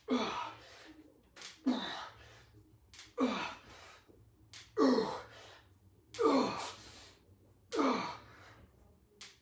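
A man's forceful, voiced exhalations, one with each repetition of a dumbbell press, about every second and a half, each falling in pitch.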